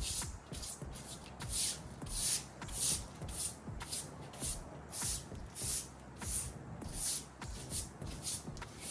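Broom sweeping debris off a hard surface, about two brisk swishing strokes a second.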